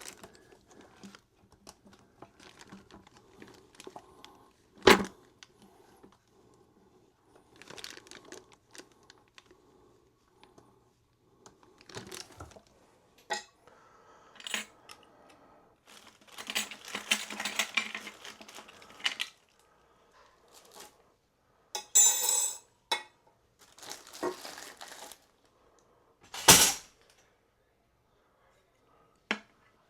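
Bidet seat mounting brackets and small hardware being handled: scattered clinks and clicks of small plastic and metal parts, three sharp clacks, and a stretch of rustling packaging in the middle.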